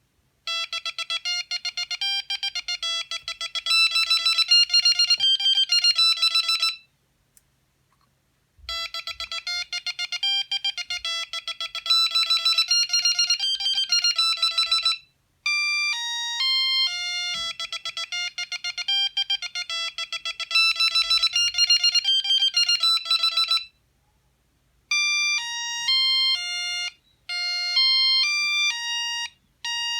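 Sony CMD-CD5 mobile phone playing its built-in ringtones: short electronic melodies played one note at a time. The first two runs are made of fast trilling notes, and the later two step between plain held notes, with short pauses between runs.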